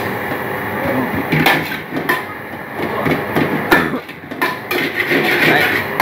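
Metal ladle clanking and scraping against a steel wok as fried rice is stir-fried, with irregular sharp strikes over a steady hiss.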